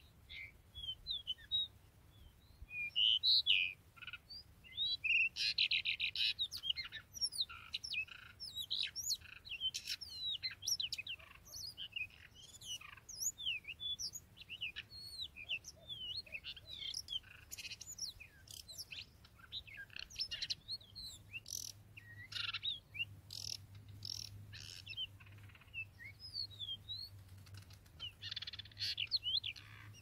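Magpie-robins singing and calling: a busy stream of quick, varied whistles and chirps, with louder, harsher runs of notes a few seconds in and again near the end.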